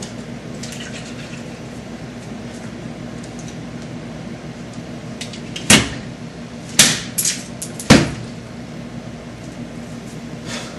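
A few sharp knocks and clatters from things and doors being handled at an open refrigerator, about four of them between six and eight seconds in, over a steady low hum.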